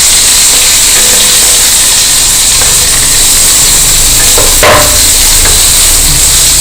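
Chopped onions sizzling steadily in hot oil in a kadai, with one short sharp knock about four and a half seconds in.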